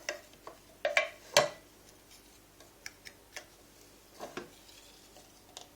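Measuring spoon scooping ground coffee and tapping and scraping against the grinder's coffee container as each spoonful is levelled off: a scatter of light clicks and taps, the sharpest about one and a half seconds in.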